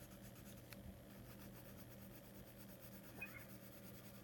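Faint scratching of a coloured pencil shading on paper, over a steady low hum, with one soft click about three-quarters of a second in.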